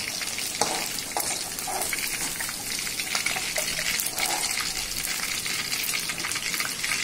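Marinated chicken pieces deep-frying in hot oil in a kadai, a steady sizzle and crackle. A metal slotted ladle stirs through the oil, with a few sharp clicks against the pan in the first second or two.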